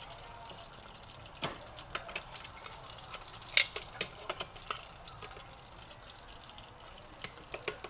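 Scattered sharp clicks and clinks of kitchen utensils and dishes being handled, irregular and a dozen or so in all, the loudest about three and a half seconds in, over a faint steady hiss.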